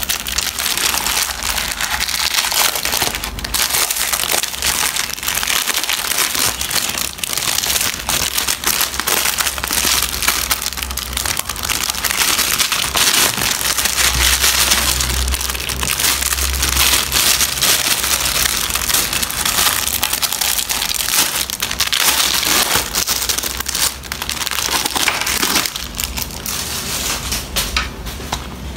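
Clear plastic wrapping crinkling continuously as it is handled and peeled off a ring binder.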